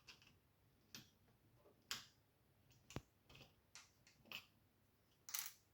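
Faint, scattered clicks and taps of small plastic parts being handled as a little cover on a UK double socket face plate is lifted, about eight over several seconds, the sharpest near the middle and one a little louder near the end.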